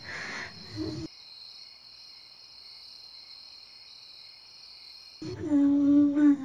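A rough breathy sound cuts off about a second in, leaving a steady high chirring of crickets. About five seconds in, music enters with a held low note.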